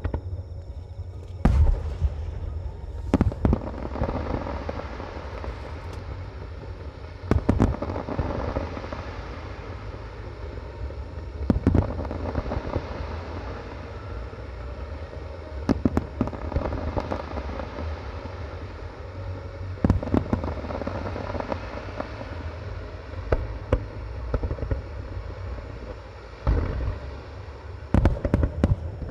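Japanese star mine fireworks barrage: aerial shells bursting in sharp, deep booms every few seconds, with a cluster of booms near the end, over a continuous wash of crackling and rumbling from the display.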